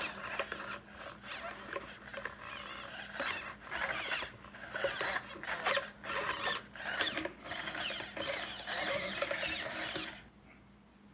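Irregular mechanical rattling and scraping in short bursts with brief gaps, stopping abruptly about ten seconds in.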